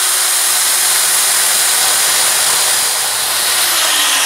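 Angle grinder with a flap disc grinding down the steel outer race of an old bearing: a steady motor whine over a rasping grind. Near the end the pitch starts to fall as the grinder winds down.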